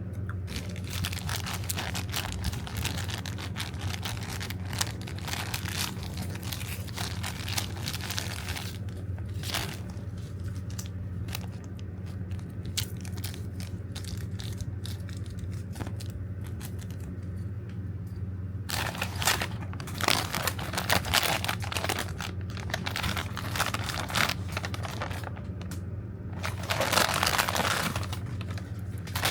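Plastic toy packaging crinkling and tearing as it is opened by hand, in three spells with the loudest near the end, over a steady low hum.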